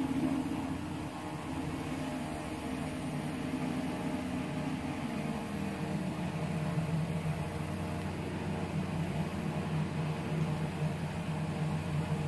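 A steady low motor hum made of several even tones, running without a break.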